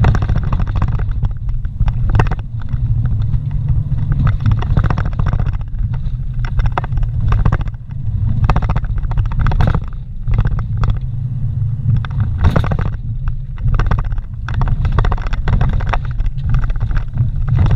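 Vehicle cabin sound while driving slowly over a rough dirt road: a steady, low engine and road drone, broken by frequent short knocks and rattles as the vehicle jolts over bumps.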